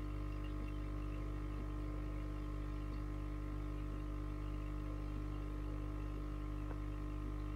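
Steady electrical hum from an aquarium pump. It is a constant drone of several low tones, with a few faint ticks over it.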